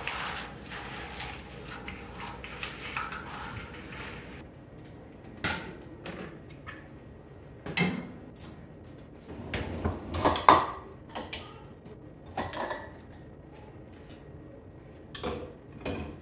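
A broom sweeping debris into a plastic dustpan on a tile floor for the first few seconds, then dishes and a pan knocking against the wire racks of a dishwasher as it is loaded: a handful of separate clatters, the loudest about ten seconds in.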